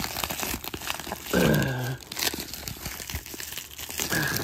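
Plastic cling wrap crinkling and tearing as it is pulled off a package by hand, with a brief low hum from a man's voice about a second and a half in.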